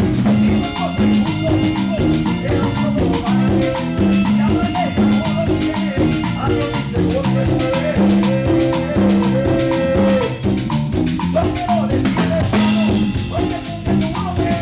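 Live band playing an upbeat Latin dance tune with drums, bass and melody instruments, without vocals; a cymbal crash near the end.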